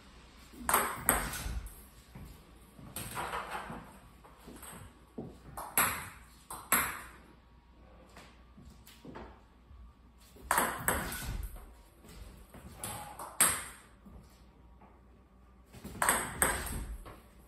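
Table tennis serves practised one after another: sharp clicks of the ball struck by the paddle and bouncing on the table. They come in clusters every few seconds.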